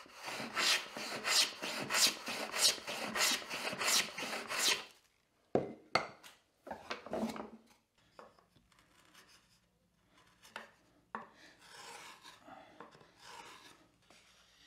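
Hand plane taking quick, short shaving strokes along the edge of an alder board, about three strokes a second for about five seconds, planing it down to a scribed line. Then a few knocks as the board is handled, and fainter scratching near the end.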